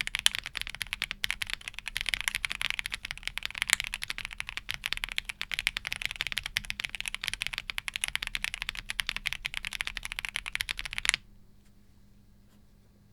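Fast, steady typing on a mechanical keyboard fitted with Akko CS Air linear switches: a dense run of key clacks that stops abruptly about eleven seconds in.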